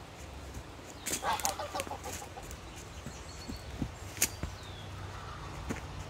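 A domestic goose gives a short harsh call of a few honks about a second in, with footsteps on the leaf-littered dirt path around it.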